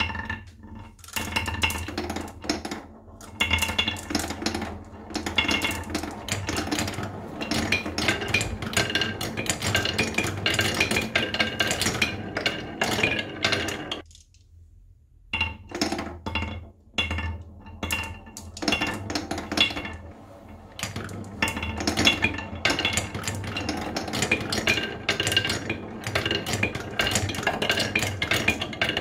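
Marbles poured into a wooden funnel and running down a wooden marble run: a dense, continuous clatter of clicks, rattles and rolling as they hit and roll along the wooden tracks, with a short pause about halfway through.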